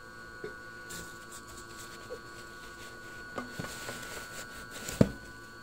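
Light rustling and small knocks of a paper towel and resin vat being handled, over a steady faint whine from a running resin wash-and-cure station. A sharp knock about five seconds in is the camera being bumped.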